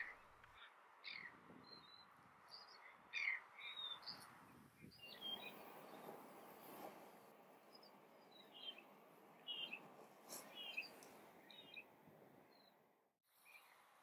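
Australian Reed-Warbler singing faintly: short, high chirping notes in small scattered clusters.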